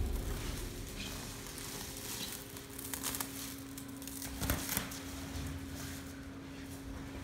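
Plastic stretch-wrap film pulled off a hand roll and wound around a wooden cabinet, crackling and rustling, with louder crinkles about three and four and a half seconds in. A steady low hum runs underneath.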